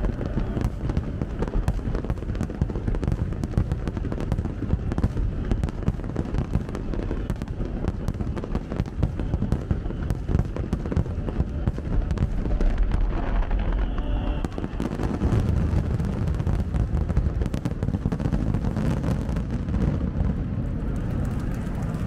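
Dense barrage of aerial firework shells bursting, many sharp cracks in quick succession over a continuous low rumble, with no pause between bursts: the finale of a large fireworks display.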